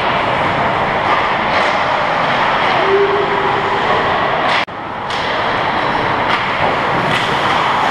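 Ice hockey rink noise: a loud steady hiss and rumble of skating and the arena, with a few sharp knocks scattered through it. The sound briefly drops out a little past halfway.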